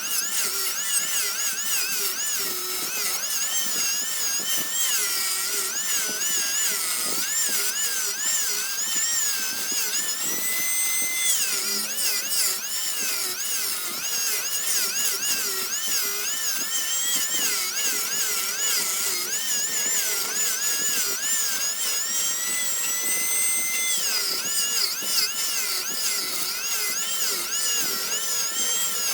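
High-pitched whine of a power tool working wood, its pitch wavering up and down over and over as the load changes, with a couple of short spells held at a steady pitch.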